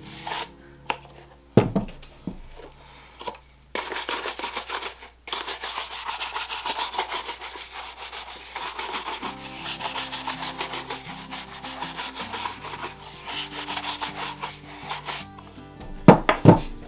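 Bristle shoe brush rubbed briskly over the leather of a dress shoe in rapid back-and-forth strokes, brushing off a cleaner-conditioner that has soaked in. There is a sharp knock near the start and a couple more near the end.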